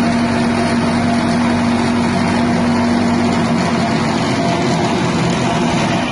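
Small 6.5 hp petrol engine of a grass chopper machine running steadily.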